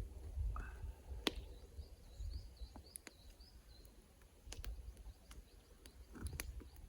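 Small birds chirping in the woods, with a quick run of short chirps about two seconds in, over a low rumble and a few sharp clicks or snaps.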